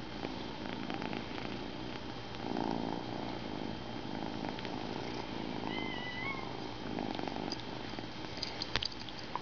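Domestic kitten purring close to the microphone, with a few light sharp clicks near the end.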